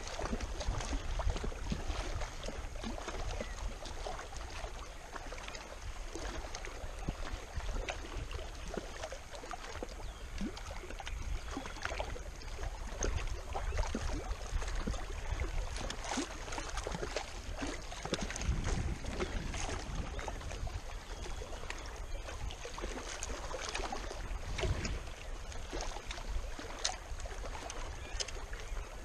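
Wind on the microphone as a steady low rumble, with small waves lapping and splashing against the rocky lake shore in irregular little splashes and clicks.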